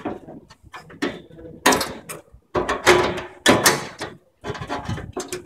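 A stainless-steel faceplate being handled and pushed onto the mounting studs of a metal ATM cabinet: a series of irregular metal scrapes and knocks, loudest through the middle.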